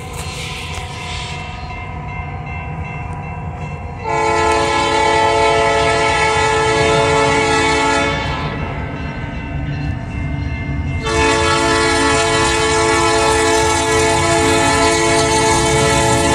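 BNSF diesel freight locomotives approaching with engines rumbling, sounding a multi-note air horn chord: one long blast about four seconds in, then a second long blast starting about eleven seconds in.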